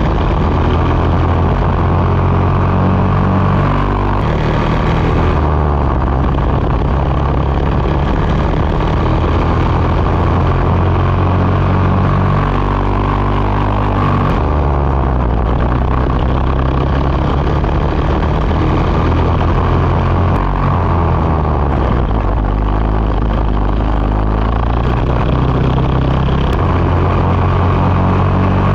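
Racing kart engine at speed, recorded close up from onboard: the revs rise and fall repeatedly as the kart drives through corners and along the straights.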